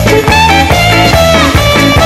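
Upbeat background music with a steady beat and a melody line over sustained chords.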